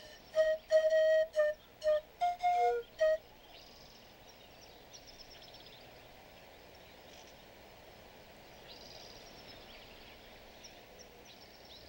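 A flute playing a quick phrase of short, detached notes, which stops about three seconds in. After that there is only a faint outdoor background with a few soft high chirps.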